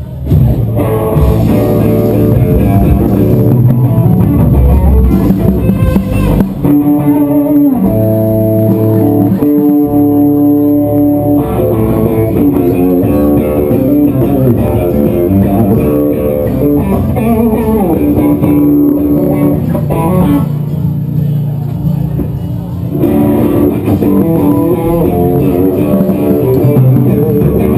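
Loud guitar-led rock music with bass guitar and drums.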